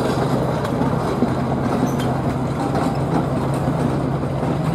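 John Deere super stock pulling tractor's diesel engine idling steadily while hooked to the sled, a deep even rumble with no revving.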